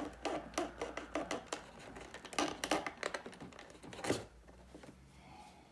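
Quick clicks and rustles of a small cardboard box being handled, dying away after about four seconds.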